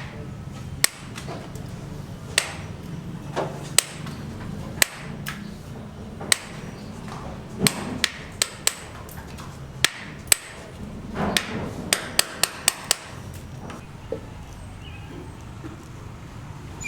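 Hammer blows on a building site: single sharp knocks at irregular intervals, with a quicker run of strikes near the end, over a steady low hum.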